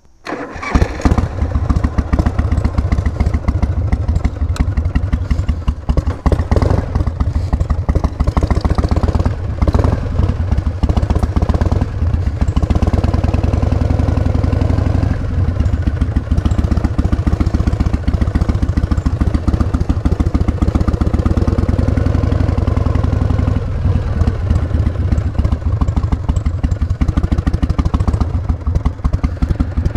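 1988 Harley-Davidson Heritage Softail's 1340 cc Evolution V-twin starting up about half a second in, then running loud with a fast, even pulse of exhaust beats, its pitch rising and falling a few times.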